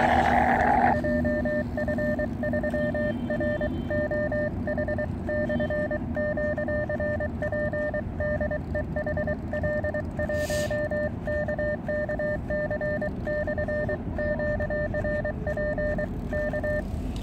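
Morse code sidetone from an Elecraft KX2 transceiver as its paddle key is worked: a steady-pitched beep keyed into dots and dashes, sending the call "JF3ROH/QRP DE HL1KKC/QRP". It starts about a second in, with a low wind rumble on the microphone underneath.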